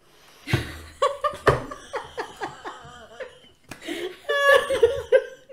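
Two women laughing together: a run of quick, repeated laughs for a few seconds, then higher-pitched laughs a little after four seconds in.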